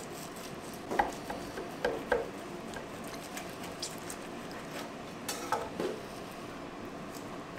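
Long kitchen knife cutting a smoked bone-in rib roast away from its bones on a wooden cutting board: soft cutting with a few short knocks of the blade against board and bone, a cluster about a second in and another around five and a half seconds.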